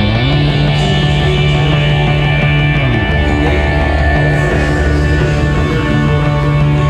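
Loud background rock music, with a low bass line that holds notes and slides between them.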